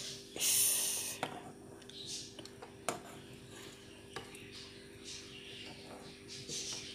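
A metal spoon clinks and scrapes against the inside of a small metal saucepan while stirring rasmalai simmering in milk, giving a few sharp clinks spaced a second or two apart and softer scrapes. A brief loud rushing noise comes about half a second in, and a steady low hum runs underneath.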